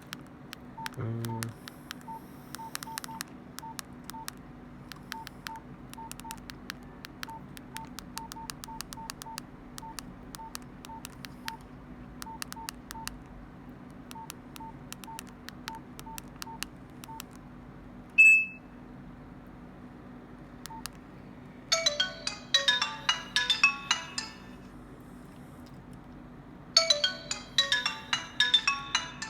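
Nokia 105 (2013) keypad in use: a string of plastic key clicks, many with a short beep, a short low buzz about a second in, and a single higher beep about 18 seconds in. Near the end the phone's small speaker plays two short ringtone melodies.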